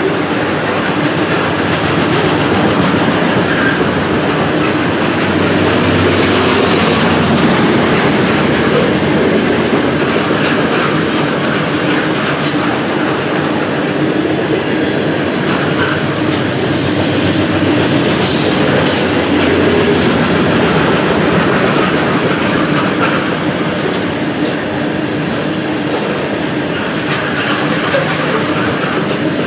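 Loaded covered hopper cars of a potash freight train rolling past: a steady rumble and clatter of steel wheels on rail, with scattered sharp clicks over rail joints.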